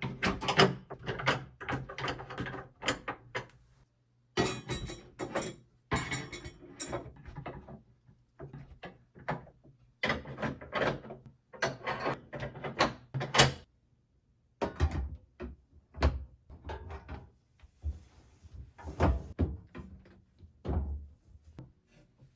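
A busy run of irregular knocks, clunks and clicks of hard objects being handled and set down, with a few heavier thumps in the second half.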